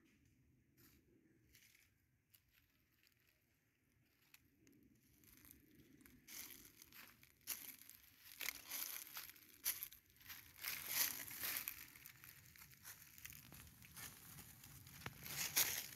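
Dry leaf litter crackling and rustling under a Komodo dragon's feet as it walks and forages over it. Almost nothing is heard at first; the irregular crunching starts about six seconds in and grows louder.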